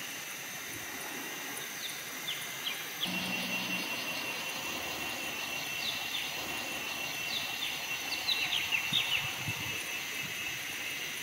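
Forest ambience: a steady, high insect drone under repeated short, falling bird chirps, with a few low thuds near the end.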